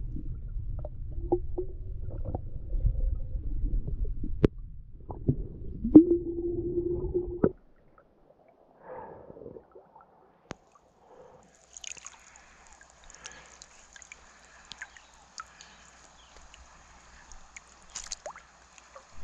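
Muffled underwater rumble and knocks picked up by an action camera submerged in the river, with a short held drone about six seconds in. About seven and a half seconds in it cuts to near quiet above the water, with faint ticks and a thin high hiss.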